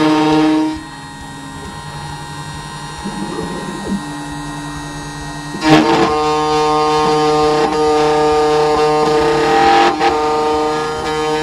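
Background music led by a plucked string instrument, playing a sustained chord. It drops to a quieter passage about a second in and comes back in full after about five seconds.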